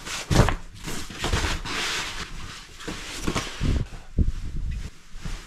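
Fabric rustling and shuffling as clothes and a sleeping bag are handled, in irregular bursts with a few soft knocks, the sharpest about half a second in.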